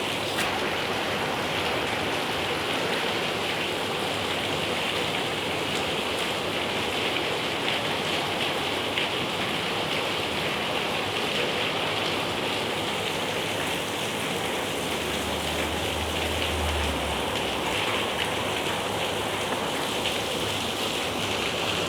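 Rain falling steadily, an even hiss of drops striking surfaces.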